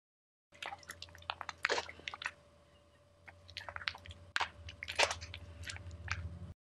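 Irregular crunching and clicking over a steady low hum. It starts abruptly about half a second in and cuts off suddenly near the end.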